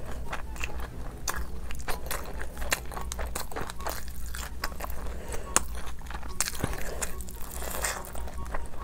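A person biting and chewing crunchy food, with many sharp, irregular crunches.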